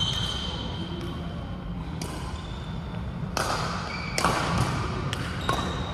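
Badminton rackets striking shuttlecocks in a rally: sharp cracks about a second apart from about two seconds in, with sneakers squeaking briefly on the hall floor, echoing in a large sports hall.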